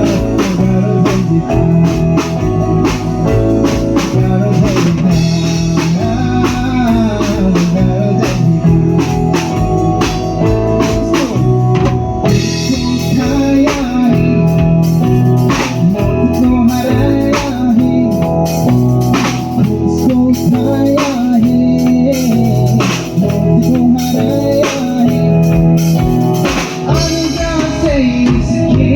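A band playing: a drum kit keeps a steady beat under sustained organ chords, loud throughout.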